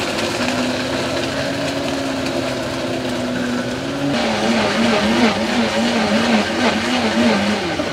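Electric blender motor running at full speed blending a coconut shake. It holds a steady pitch at first; about four seconds in the pitch drops a little and wavers up and down about twice a second until it cuts off near the end.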